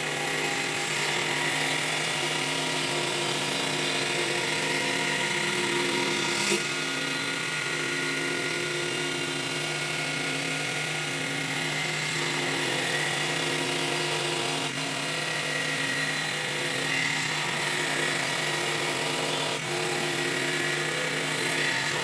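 CNC mini wood lathe running steadily, its motor and spindle giving a steady hum with a high hiss over it, typical of the tool cutting the spinning wood. A single sharp click about six and a half seconds in.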